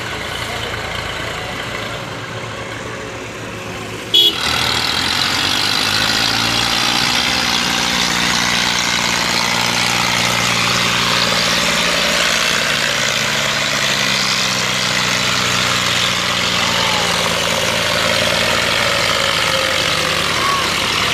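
Diesel farm tractor engines working hard under load as they haul a heavily loaded log trolley. About four seconds in the sound cuts abruptly to a louder, harsher engine noise, which then runs on steadily.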